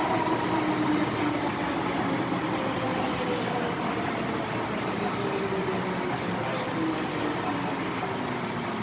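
MTR M-Train electric multiple unit braking into a station: its traction motors whine, their tone falling slowly in pitch, over steady running noise from inside the car.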